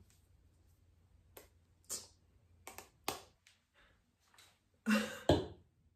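Small plastic spray bottle being handled: a scattered series of short clicks and brief hisses, the loudest two near the end.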